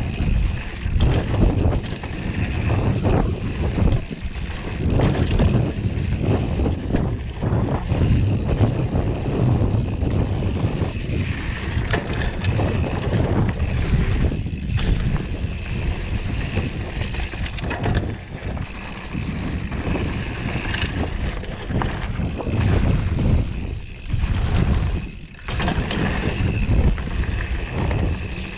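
Mountain bike ridden fast down a dirt trail: wind rumbling on the camera microphone over the tyres rolling on dirt, with frequent short rattles and knocks from the bike over bumps.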